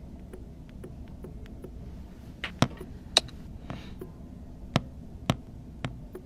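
Smartphones being handled and tapped: a run of faint, evenly spaced ticks, then about five sharp clicks and a short swish.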